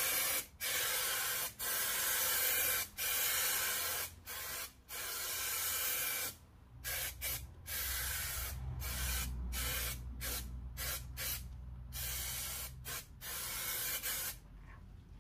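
Spray adhesive hissing from its nozzle in repeated spurts as glue is sprayed on for the fabric wrap. The spurts last about a second each at first, then come shorter and quicker, and stop shortly before the end.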